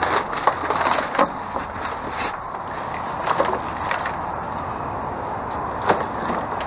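Discarded goods being shifted and rummaged through inside a dumpster: rustling and clatter with a series of sharp knocks, two of them the loudest, about half a second and about six seconds in.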